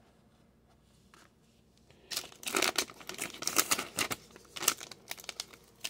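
Foil trading-card pack wrapper being torn open and crinkled by hand: a run of irregular rustling tears that starts about two seconds in and lasts a few seconds.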